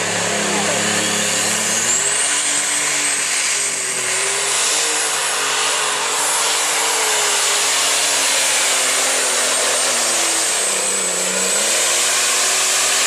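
Open Super Stock pulling tractor's turbocharged engine revving up about two seconds in and running flat out as it drags the sled, with a high turbo whine that climbs and then holds. The sound drops off suddenly near the end.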